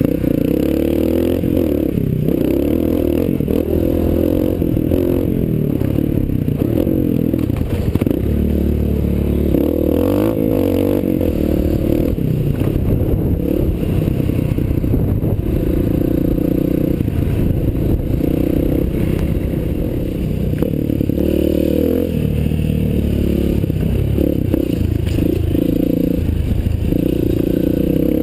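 Honda CRF230 dirt bike's single-cylinder four-stroke engine running hard under the rider, its revs rising and falling over and over as it accelerates, shifts and backs off.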